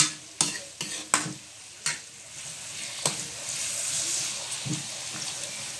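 Vegetables and pork stir-frying in a metal wok: a steady sizzle, with a metal spatula knocking and scraping against the pan. There are several sharp knocks in the first two seconds and another about three seconds in.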